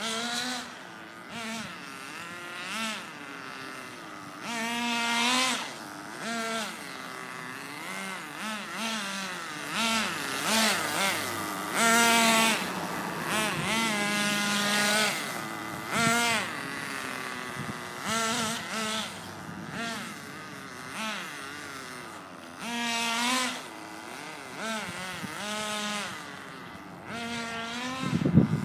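Small nitro RC car engine revving in repeated bursts. Its high buzzing pitch climbs and falls again and again, and between runs it drops back to a steady idle. A heavy thump comes just before the end.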